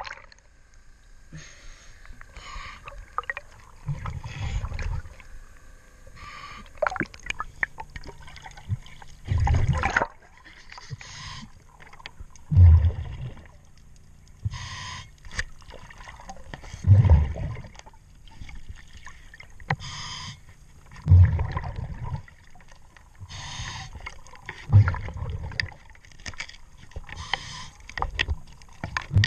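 Diver breathing through a regulator underwater in a slow, even cycle: a hiss on each breath in and a loud gurgling burst of exhaust bubbles on each breath out, about every four seconds.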